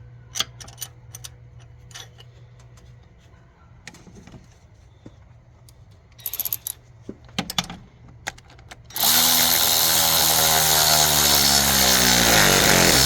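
Light metal clinks of hand tools for the first several seconds. Then, about nine seconds in, a power tool starts and runs loudly for about four seconds, its pitch dropping as it goes.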